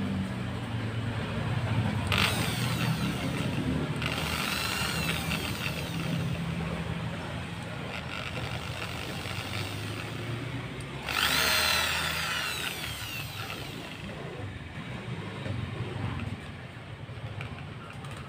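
Handheld electric drill running with a small bit boring into a carved wooden slingshot frame. It runs steadily, with its whine rising and falling in louder spells about 2, 4 and 11 seconds in.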